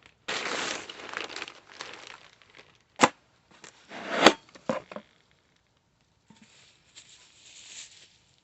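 Shipping package being torn open by hand: crinkling rustle of the wrapping for about two seconds, then two sharp rips about three and four seconds in, the second the loudest. It quietens to light rustling near the end.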